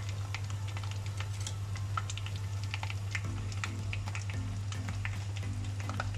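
Batter-coated chicken drumsticks deep-frying in hot oil, a dense scatter of crackling pops over a steady sizzle. This is the second fry, done for a crisp crust.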